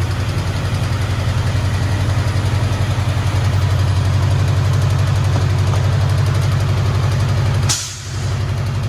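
Vehicle engine running with a steady low drone. Near the end a short sharp noise cuts in and the drone dips for a moment before it returns.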